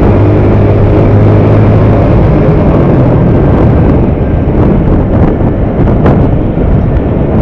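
Motorcycle engine running at cruising speed under a loud rush of wind on the microphone. The engine's steady low hum is plain for the first two and a half seconds or so, then sinks under the wind and road noise.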